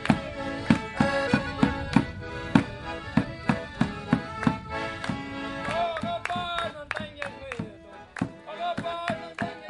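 Live folk dance tune played on two accordions over a steady beat on a double-headed bass drum, with hand clapping along.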